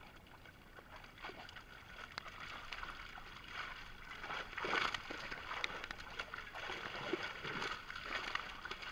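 Water splashing and churning as a netful of live fish thrash at the surface, a busy run of small splashes with a louder burst of splashing about halfway through.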